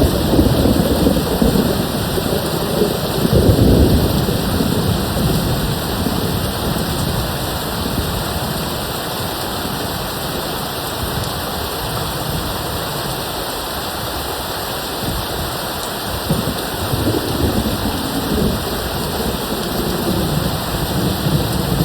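Steady rain with distant thunder rolling. The rumbles swell in the first few seconds and again near the end.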